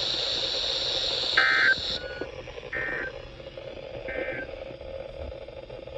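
Three short bursts of SAME digital data tones, about 1.4 s apart: the end-of-message code that closes an Emergency Alert System warning on NOAA Weather Radio. A steady radio hiss cuts off about two seconds in.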